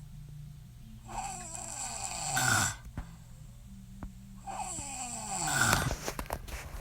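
A woman snoring in her sleep: two breaths about three and a half seconds apart, each a falling whistling tone that ends in a loud rasping snore.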